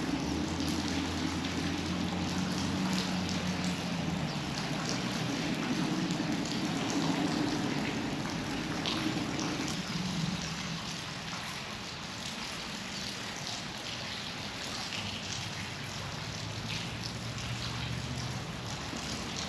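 River water running and trickling, an even rushing sound, with a low steady hum under it during the first half and again near the end.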